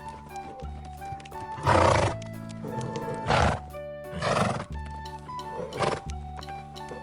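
Horse neighing in four separate calls, the longest and loudest about two seconds in, over steady background music.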